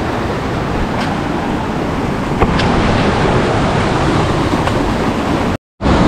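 Steady rush of a fast-flowing stream, with a few faint clicks; the sound cuts out for a moment near the end.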